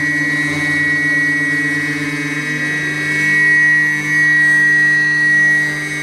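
CNC router spindle running with a steady high-pitched whine while cutting galvanized sheet metal; it gets louder for a moment about three seconds in and again about a second later.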